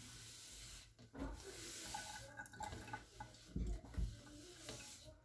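Wet sponge wiping and swishing water around a stainless-steel sink basin while baking-soda residue is rinsed off. Two soft thumps come about three and a half and four seconds in.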